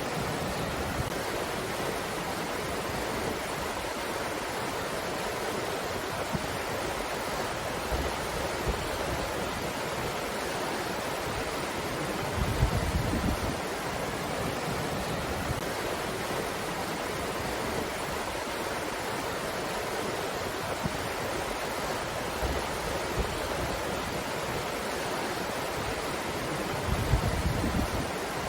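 Breeze blowing steadily, a constant rushing hiss, with two brief low rumbles of stronger gusts, about halfway through and near the end.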